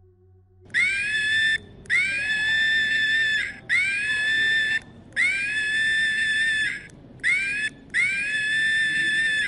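An animal screeching: six long, shrill calls of about a second each, every one sliding up at the start and then held, with short pauses between.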